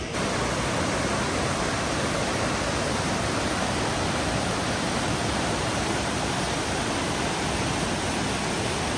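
Fast creek rushing over rocks and small cascades: a steady, even rush of white water.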